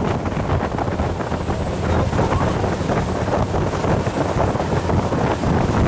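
Wind buffeting the microphone on the open deck of a Pershing 70 motor yacht at speed, over the steady rush of its churning wake and its twin engines.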